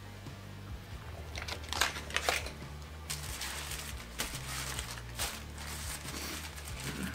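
Paper burrito wrappers crinkling and rustling in clusters as wrapped breakfast burritos are picked up and handled, over quiet background music.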